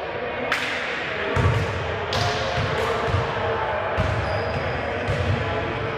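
Basketball dribbled on a hardwood court, thudding about once a second, amid players' voices.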